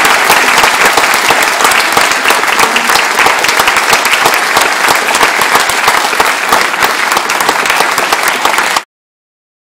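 Audience applauding, a dense patter of many hands clapping close around a phone's microphone; it cuts off suddenly near the end.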